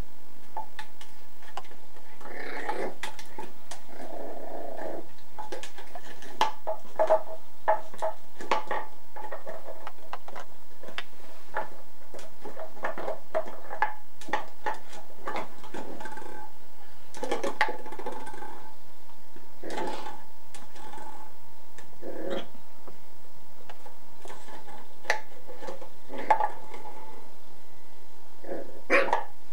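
A young puppy growling in play, in short stretches, the longest a few seconds in. Scattered knocks and clicks run through it as it pushes a plastic bottle and plush toys about.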